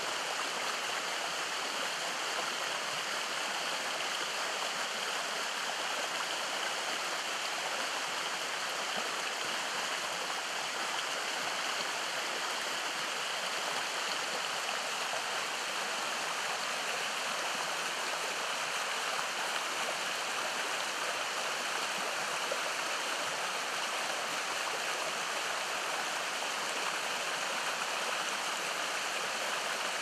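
Shallow creek running over stones and roots: a steady, unbroken rush of water.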